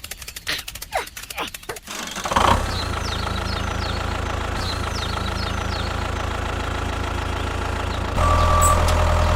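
A small engine running steadily. It comes in about two seconds in, after a few clicks, and gets louder with a change in tone near the end.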